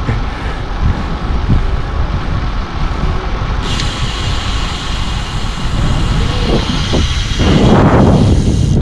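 Wind buffeting the microphone on a moving bicycle, a low rumble that grows louder near the end. From a little over three seconds in, a steady high hiss joins it and stops abruptly at the end.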